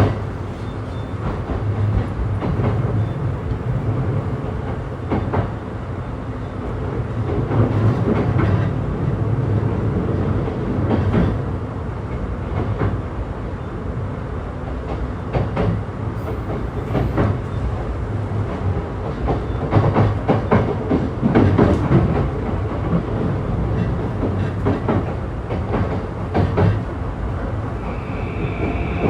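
Onboard running sound of a JR East E235-1000 series electric train: a steady rumble of wheels on rails with irregular clicks and knocks from rail joints. A steady high tone comes in near the end.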